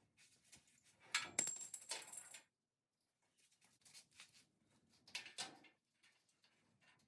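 Small loose metal parts jingling and clinking together, with a high metallic ring, about a second in. A shorter clatter follows a little after five seconds.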